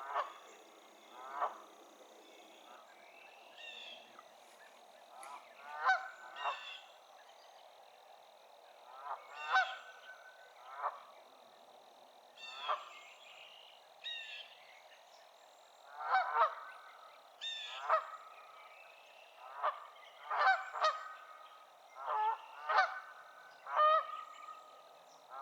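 A pair of Canada geese calling back and forth: a long series of loud honks at irregular intervals, many coming in quick pairs or short clusters.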